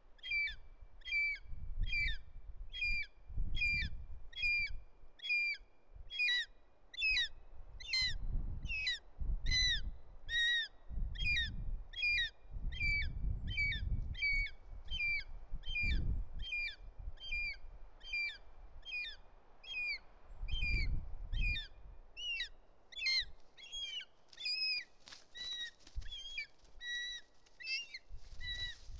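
Juvenile short-toed snake eagle screaming over and over, a wavering high call about one and a half times a second: food-begging as the parent brings a snake. The calls turn more varied and ragged near the end as the adult lands on the nest, over intermittent low rumbles.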